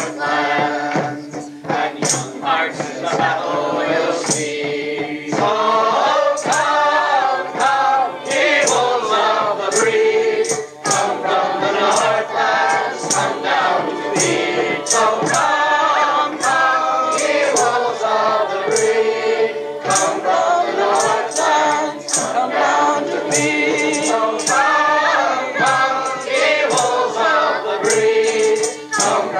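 A choir of mixed voices singing a rousing folk song, with a steady beat of sharp percussive strikes.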